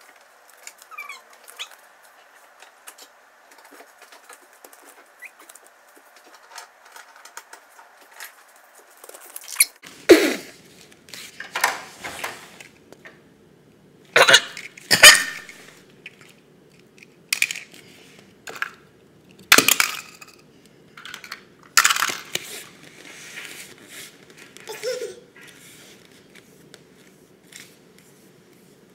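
A toddler's short, loud squeaks and knocks right at the camcorder's microphone, about nine in quick succession starting about ten seconds in, after a quiet start.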